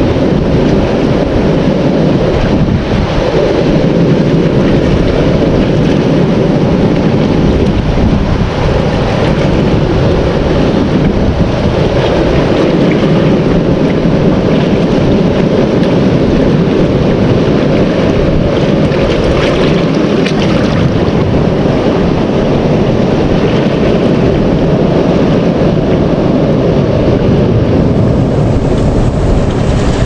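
Loud, steady wind noise on the microphone over the rush of sea waves washing among rocks along a reef shoreline.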